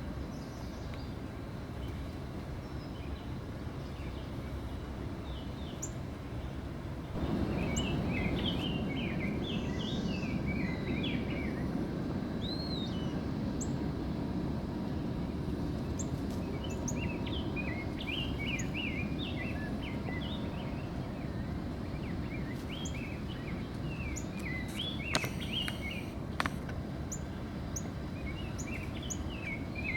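Northern cardinal chirping in quick bursts of short, slurred notes, several bursts with pauses between, over a steady low outdoor rumble that grows louder a few seconds in. Two sharp clicks come near the end.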